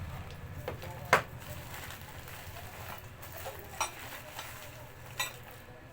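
Tools and packaging being handled: a sharp click about a second in, then a few lighter clicks and knocks, over a steady low hum and a faint crackle.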